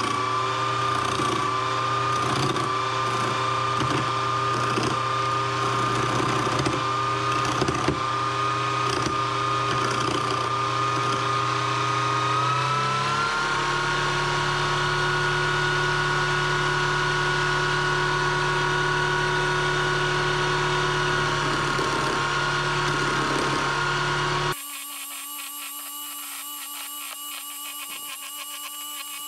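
Budget Aldi wood-turning lathe running with a steady motor whine while a hand chisel cuts a spinning spindle of wet, freshly fallen wood, with intermittent scraping from the cut. The whine steps up in pitch about halfway through. Near the end the sound drops abruptly quieter and thinner.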